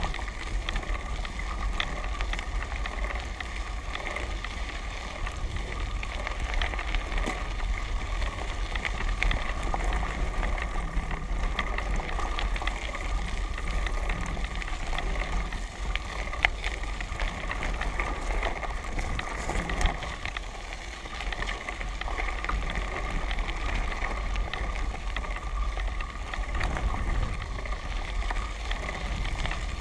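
Tyres rolling steadily over a gravel dirt track, with a constant crackle of small stones under them and a low rumble of wind on the microphone.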